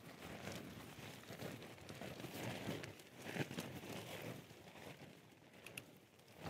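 Faint rustling and crinkling of lightweight tarp fabric as it is raised on a trekking pole and its tie-out point is fastened, with a couple of small clicks about five and a half seconds in.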